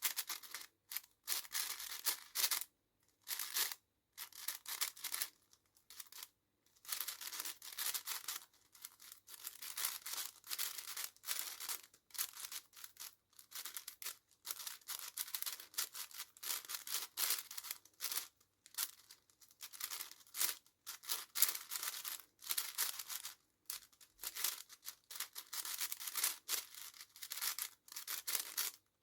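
A brand-new 6x6 speedcube, untuned and straight out of the box, being turned fast by hand during a solve. Runs of rapid plastic clicking and scraping from the layer turns come in bursts, split by brief pauses.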